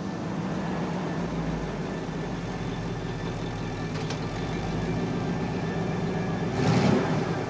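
Truck engine sound running steadily at idle with a low hum, laid over the model as a sound effect, with a brief louder rush of hiss near the end.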